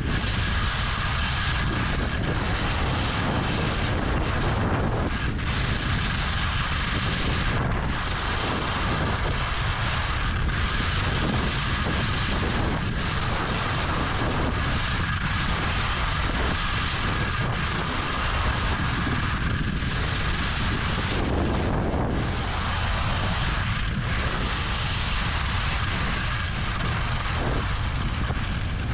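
Steady rush of wind over an action camera's microphone while skiing downhill at about 40–45 km/h, with the skis hissing over groomed snow and a faint steady whistle.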